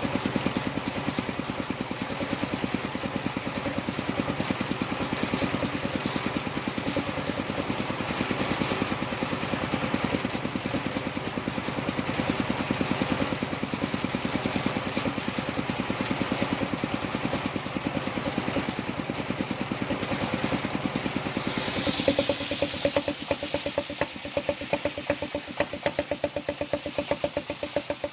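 Engine of a wood-sawing rig running steadily, with a fast, even beat and a hiss over it. About three quarters of the way through, the beat slows into separate, sharper knocks.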